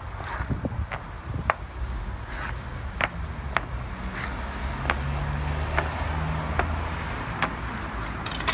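Concrete paving blocks clacking against each other as they are lifted from a stack and set down on the laid paving: sharp single knocks, irregular, about one or two a second. A low engine hum runs underneath through the middle.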